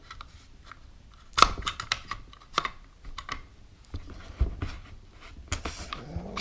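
Shotgun trigger group and receiver parts being fitted together by hand: irregular light metallic clicks and taps, with a sharper knock about a second and a half in.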